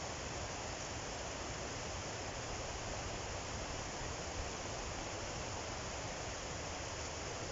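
Steady, even rushing noise with no distinct strokes, and one faint tick about four and a half seconds in.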